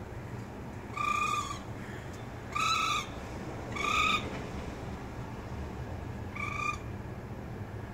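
Baby raccoon (kit) crying: four short, high, even-pitched calls spaced a second or more apart.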